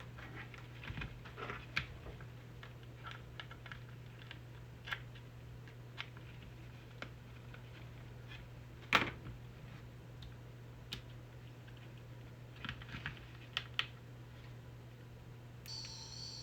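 Scattered small clicks and taps of hands working a PKE meter prop's wiring and battery connection, with a sharper click about nine seconds in. Near the end a high, warbling electronic tone starts up, the prop's add-on sound-effects board beginning to play.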